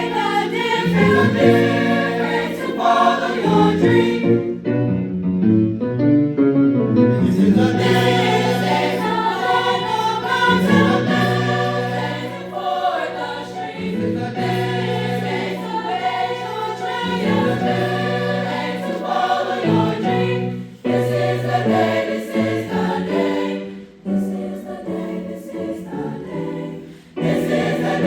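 A high school choir singing a gospel-style song, with held bass notes underneath.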